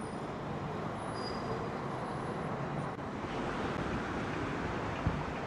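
Steady road traffic noise, with one short low thump about five seconds in.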